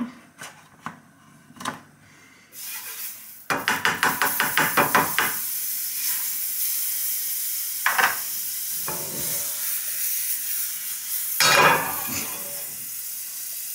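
Butter sizzling in a hot frying pan, the sizzle starting a few seconds in and then running steadily, with a fast run of spatula strokes against the pan just after it starts and two louder short noises later.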